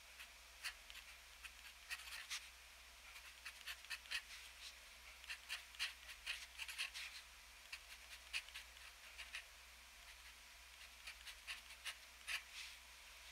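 TWSBI ECO fountain pen with an extra-fine steel nib scratching faintly on paper in quick short strokes as Japanese characters are written, with a brief lull about three-quarters of the way in.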